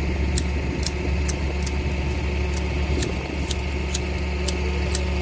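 Manual hedge shears clipping a hedge, the blades snapping shut in a steady rhythm of about two cuts a second, over a steady low engine hum.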